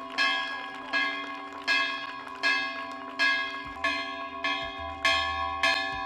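A single church bell of about 105 kg, rung by rope, striking at a steady pace a little more than once a second, about eight strokes, each stroke ringing on into the next.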